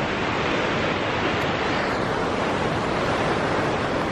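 Steady rushing of water from Taughannock Falls and the fast, swollen creek below it.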